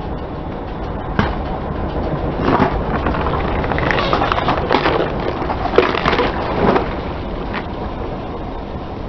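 Car tyre rolling onto half a watermelon, the rind cracking and splitting in a series of crunches and snaps between about one and seven seconds in, over the car's steady running.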